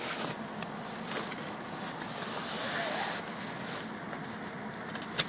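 Vehicle engines running steadily with a low hum. A single sharp click comes near the end.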